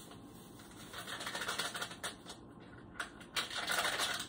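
Packet of dry Jell-O Cook & Serve pudding mix crinkling and rustling as it is tipped and shaken out into a saucepan of milk. There are two spells of crackling, one about a second in and a louder one near the end.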